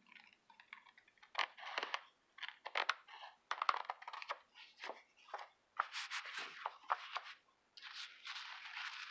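Scissors cutting through a napkin-covered card, a run of irregular crunchy snips. Near the end, a steadier rustle of the paper being handled.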